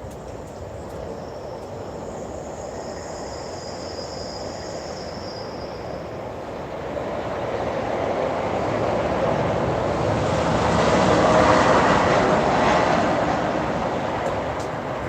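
A vehicle passing by: a steady rumble that grows louder, peaks about three quarters of the way through, then fades.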